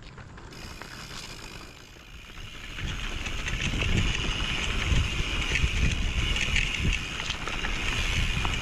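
Mountain bike rolling down a dirt trail: tyres on dirt and wind rushing over the microphone, quieter at first and getting much louder about three seconds in as the bike picks up speed.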